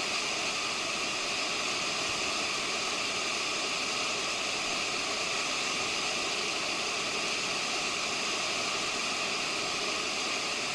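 River whitewater rushing steadily, an even hiss with no break or change.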